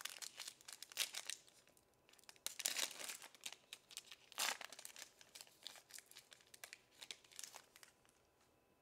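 Foil wrapper of a Bowman baseball card pack crinkling and tearing as it is ripped open by hand, in irregular bursts of crackle.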